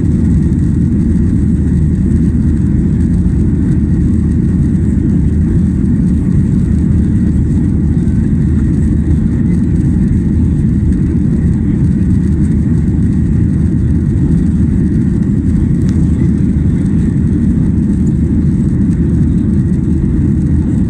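Steady, loud cabin noise inside a Boeing 737-800: its CFM56-7B jet engines and the air rushing past, a deep even rumble that doesn't change.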